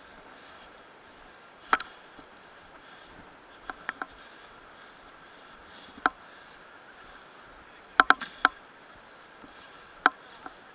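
Short, sharp clicks at irregular intervals, a single one now and then and a quick run of four about eight seconds in, over a steady faint hiss.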